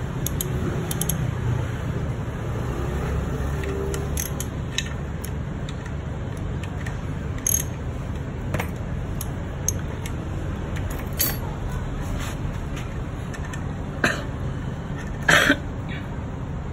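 Hand tools working on a partly assembled Aprilia RSV4 engine: scattered metal clicks and taps as a T-handle tool and a socket are fitted and turned, with a louder clack about fifteen seconds in, over a steady low background hum.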